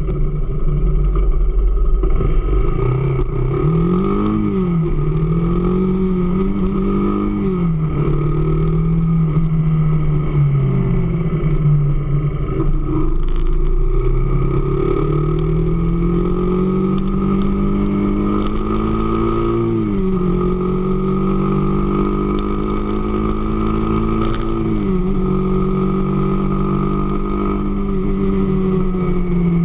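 AKT DS 200 motorcycle engine running, its revs repeatedly climbing and dropping back, with a faint steady high whine underneath.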